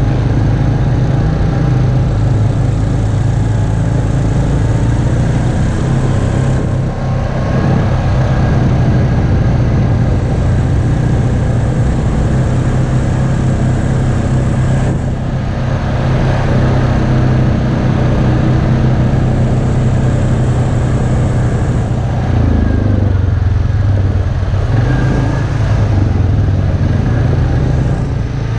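ATV (four-wheeler) engine running steadily while riding along a dirt track at low speed. The engine note shifts as the throttle changes about 22 seconds in.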